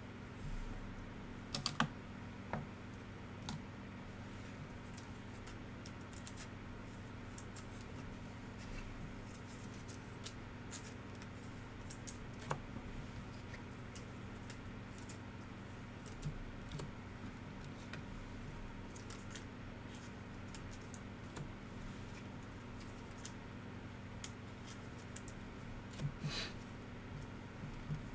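Scattered light clicks and taps of plastic trading-card toploaders and sleeves being handled, over a steady low hum.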